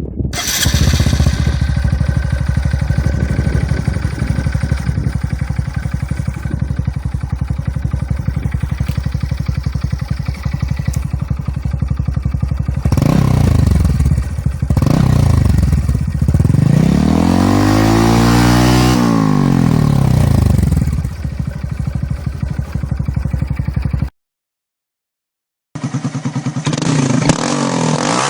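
Honda MSX125 (Grom) single-cylinder four-stroke engine running through an aftermarket exhaust. It idles steadily, then is blipped a few times, with one longer rev that climbs and falls back about two-thirds of the way in. It cuts off abruptly, and after a short gap an engine idles again.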